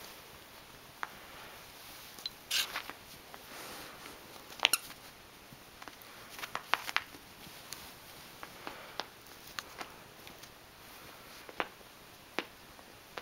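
Puppy playing with and chewing plush toys: scattered soft clicks and rustles, with a couple of sharper, louder ones.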